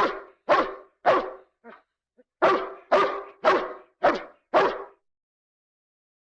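A dog barking repeatedly, about two barks a second. It goes in two runs of four or five barks, with a short pause about two seconds in, and stops about five seconds in.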